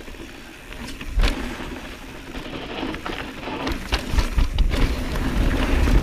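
Mountain bike riding down a steep, narrow dirt line: tyres rolling over dirt and loose rock, with knocks and rattles from the bike. A sharp knock comes about a second in, and a low rumble grows louder toward the end as the bike picks up speed.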